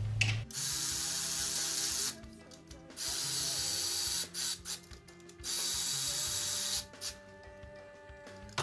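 Cordless electric ratchet running 13 mm alternator mounting bolts down until they almost seat. It goes in three steady runs of about a second and a half each, with short pauses between them.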